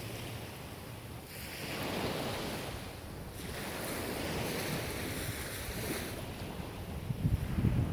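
Ocean waves washing onto the shore in slow swells that rise and fall, with wind buffeting the microphone in low rumbles near the end.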